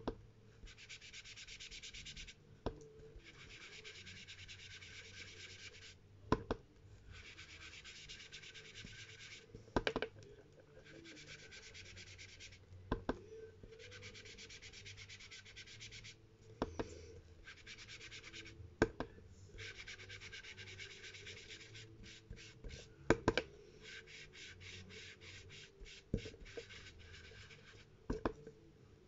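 Ink blending brush scrubbed rapidly over paper in repeated bouts of a few seconds each, with short pauses and a few sharp light knocks between the bouts.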